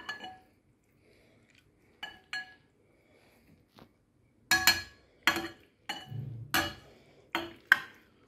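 Hard objects clinking and knocking together: a few light clinks, then about six louder ones, spaced half a second to a second apart, from about halfway on.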